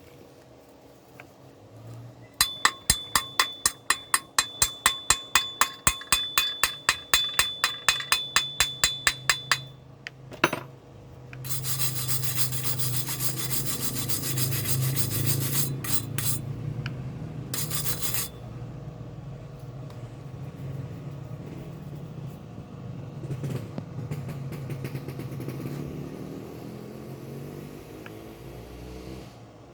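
Hand metalworking on welded iron: sharp ringing metal strokes, about four a second, for some seven seconds. Then a longer rough scraping noise over a low hum, loud at first and easing off later.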